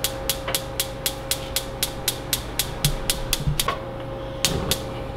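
Gas stove's spark igniter clicking rapidly and evenly, about four or five clicks a second, as the burner knob is turned and held at the light position. The clicking stops a little past halfway, then two more clicks come shortly after, over a steady faint hum.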